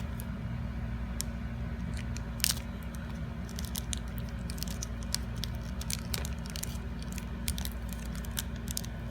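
Scattered small clicks and crinkles of the watch and its box packaging being handled as it is worked free, the loudest click about two and a half seconds in, over a steady low hum.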